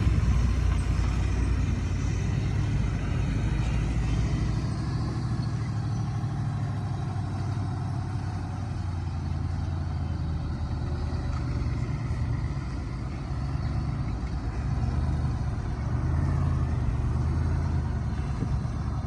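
Heavy diesel earthmoving machinery, a bulldozer or dump truck, running with a continuous low engine drone whose note shifts a few times as the load changes.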